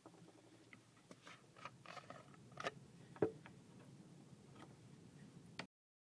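Faint scattered clicks and light handling sounds as a Zippo lighter and a bottle are handled to start the filling, the sharpest click about three seconds in.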